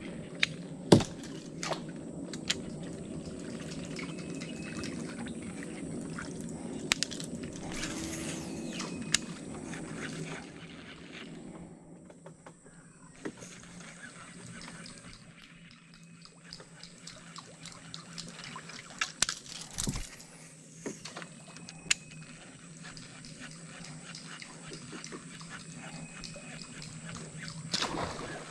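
Water dripping and lapping around a small boat gliding along a creek, with scattered light knocks on the hull. A low steady hum runs under it and fades about ten seconds in.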